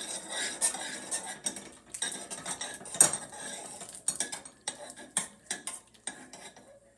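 Metal spoon stirring macaroni and melting cheese in a stainless steel saucepan, scraping and clinking irregularly against the pot, with a sharper clank about three seconds in.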